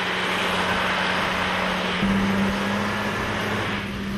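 Truck engine running with a steady hum under a dense rushing noise; the engine note steps up about two seconds in.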